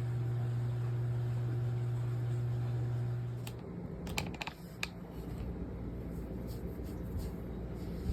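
A steady low hum that cuts off about three and a half seconds in, followed by a few sharp clicks and a faint low rumble.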